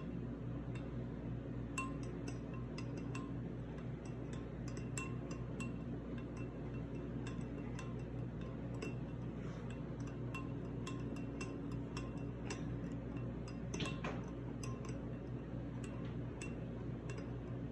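Metal spoon stirring cream of celery soup and milk in a glass bowl, making light, irregular clinks against the glass. A low steady hum runs underneath.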